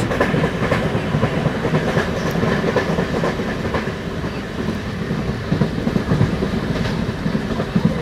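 Passenger train running along the track, heard from inside a carriage: a steady rumble with the wheels clattering over the rails.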